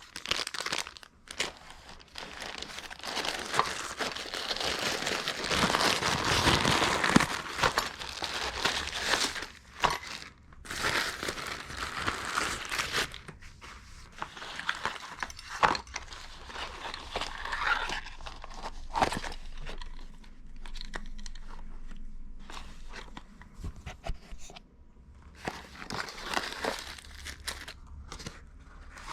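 Plastic packaging being handled and unwrapped: a long spell of crinkling and rustling, with scattered sharp crackles and a few short tearing sounds.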